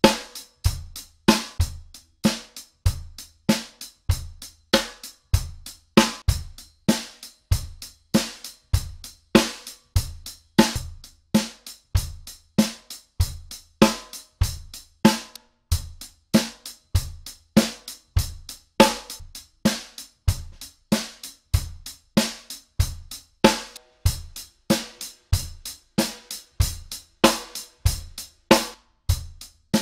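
Drum kit playing a steady beat of bass drum, snare and hi-hat, about two strokes a second, to demonstrate the snare's wires. The snare is fitted first with a Gibraltar SC 4459 16-strand set, then a Puresound Concert 16-strand set, and near the end a Tama Starclassic 20-strand set.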